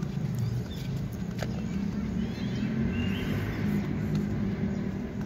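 Steady low outdoor rumble with a few light taps in the first second or two.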